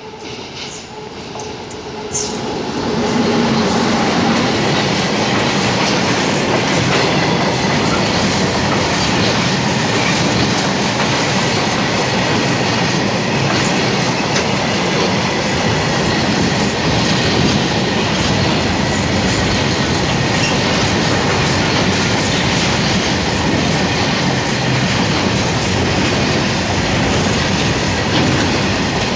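WAG-9H electric locomotive hauling a freight train at speed, its noise rising sharply about two seconds in as it passes. After it comes the steady loud rumble and clatter of a long rake of open freight wagons rolling by on the rails.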